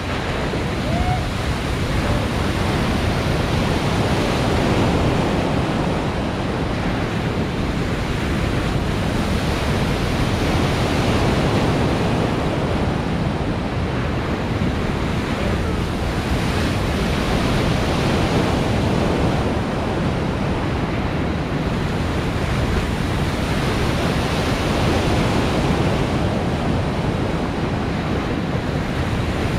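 Steady rush of surf from the artificial wave pool's machine-made waves breaking and running, with some wind noise on the microphone.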